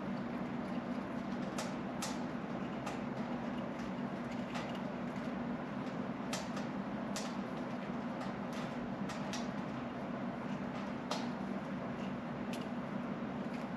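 Steady low hum over a noisy background, with irregular sharp clicks and taps about one or two a second; no chirping.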